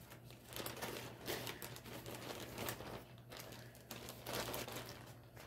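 Irregular rustling and crinkling as a cross-stitch project is handled, with scattered light crackles throughout.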